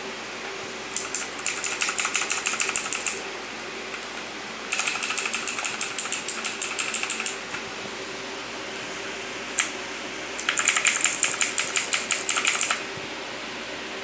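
Motospeed Inflictor CK104 mechanical keyboard being typed on in three quick runs of sharp keystroke clicks, each about two to three seconds long, with a lone keypress just before the last run.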